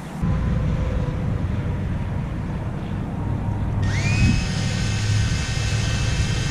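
Electric drill drilling out spot welds in sheet-metal truck body panels, with a low rumble. About four seconds in, the drill's whine rises sharply in pitch and then holds steady.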